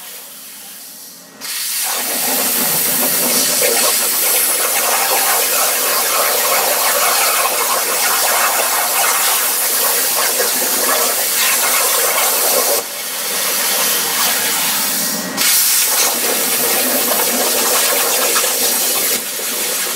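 Plasma arc from an Everlast PowerPlasma 60S with an S75 torch cutting 3/8 in steel: a loud, steady hiss. It comes in about a second and a half in over a fainter hiss, dips briefly twice later on, and fades near the end.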